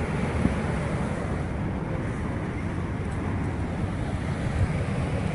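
Steady rushing of white water falling and pouring through a narrow rock canyon, with wind buffeting the microphone.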